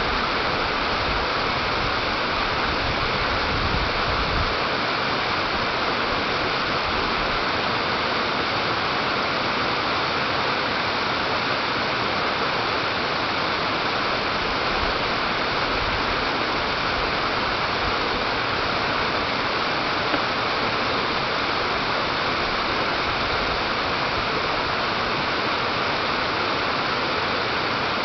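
Steady rush of river water running over rocks, an even hiss that does not change.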